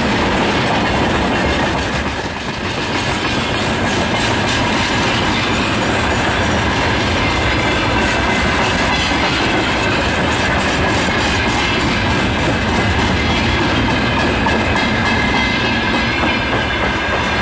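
Freight train of container flatcars rolling past at close range: steady rumble and clatter of steel wheels on the rails, with a thin high whine running under it.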